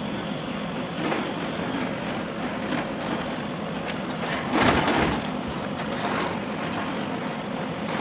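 Handling noise from the metal front-axle gear case of a Kubota B1502 being picked up and turned over on a workbench, against a steady background noise, with one louder, brief noise about halfway through.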